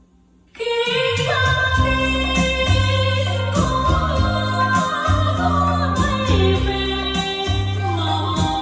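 Vietnamese song with a female singing voice: after a brief near-silent pause, the music starts loudly about half a second in, with a bass line under the melody.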